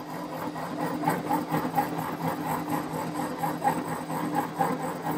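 Electric flat-die feed pellet mill running while making animal-feed pellets: a steady motor hum with a rhythmic ticking clatter about four times a second as pellets are pushed out and spill down the discharge chute.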